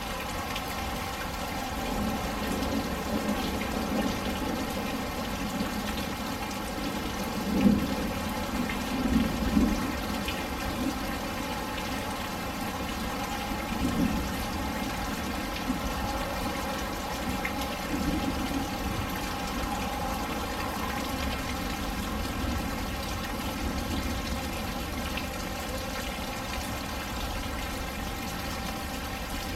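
Steady rain falling, with a few louder close drops or splashes, the loudest about eight seconds in, then again around nine, fourteen and eighteen seconds.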